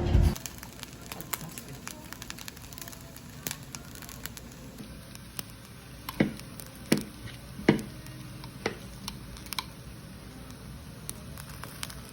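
Food sizzling in a frying pan, with a few sharp clicks and knocks scattered through, the loudest ones a little past the middle.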